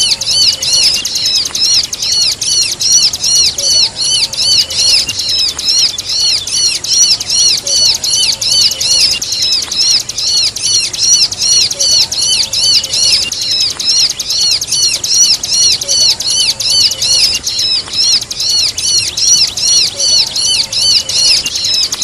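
Bar-winged prinia (ciblek) song combined with a trapped bird's distress cries: a fast, unbroken run of high, arching notes, about four a second.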